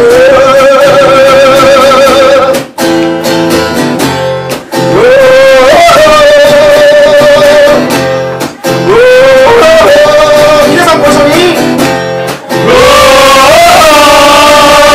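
A man singing in long held notes while strumming an acoustic guitar, live, the phrases broken by short pauses every few seconds.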